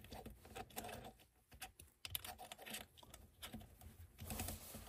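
Faint, irregular small clicks and light metal taps of an Allen key working the screws of an aluminium phone cage as they are tightened.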